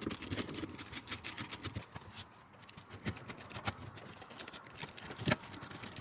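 Small irregular clicks and faint scraping as a bolt is turned by hand with a screwdriver through a plywood framing strip into a rivet nut in a van ceiling, with one sharper knock about five seconds in.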